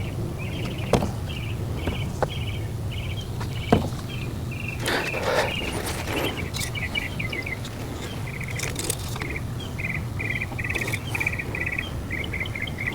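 Insects chirping in rapid, repeated trills in the background, with a few sharp clicks and a brief scrape of handling about five seconds in, over a steady low hum.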